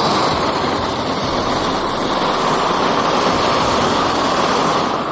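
Large gas torch burning with a steady, loud hiss of gas and flame, throwing a flame about four feet long; it drops away at the very end.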